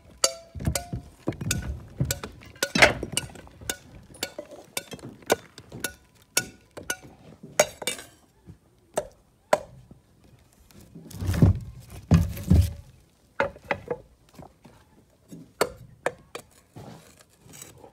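Clay roof tiles being laid in mud mortar with a metal trowel: irregular clinks and knocks of tile on tile and trowel on tile, some with a short ringing, and a few heavier thuds about two thirds of the way through.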